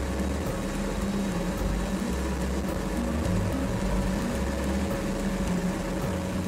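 Ultralight helicopter running steadily, a constant engine hum with a held tone over an uneven low rumble.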